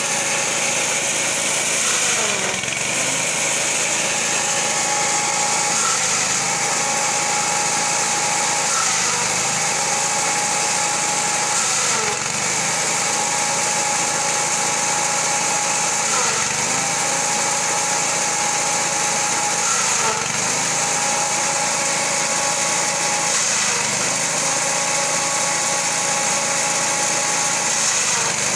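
Engine-driven grass chopper running steadily, its pitch dipping briefly about every four seconds.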